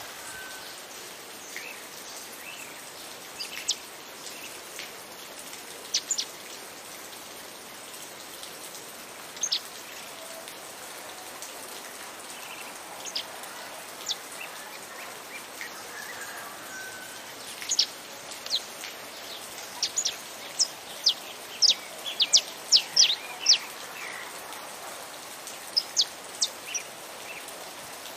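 Saffron finch song: short, sharp high chirps, scattered at first, then coming thick and fast in a run about two-thirds of the way in, over a steady hiss of rain.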